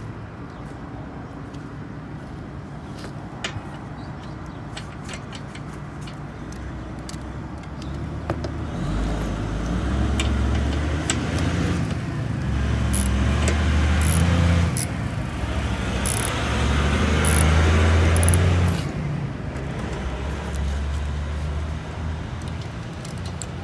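A vehicle engine rumbles, building up about a third of the way in, loudest in the middle and falling away shortly after, with scattered small clicks throughout.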